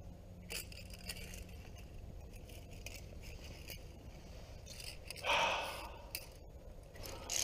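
Via ferrata carabiners clinking and scraping on the steel safety cable as the climber moves along it, with scattered sharp clicks and a louder rasping rub about five seconds in.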